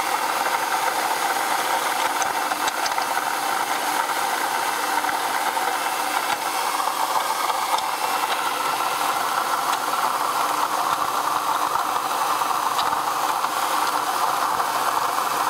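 2004 Ford Taurus V6 idling with a steady grinding from the belt-driven accessories. The owner thinks it comes from a pulley, possibly the air-conditioning compressor's.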